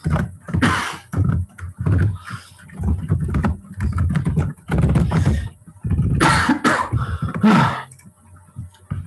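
A person's voice making muffled, wordless vocal sounds.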